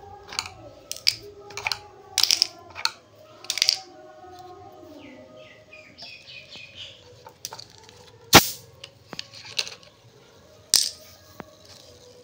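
Hard plastic popsicle-stick lids being pulled out of a plastic ice-pop mould and set down on a concrete floor: a quick series of clicks and knocks, then a few single sharp clacks, the loudest about eight seconds in.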